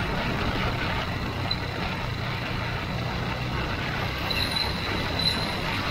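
Honda Transalp 700's V-twin engine running steadily under way on a dirt track, mixed with steady rushing wind and road noise on a bike-mounted camera.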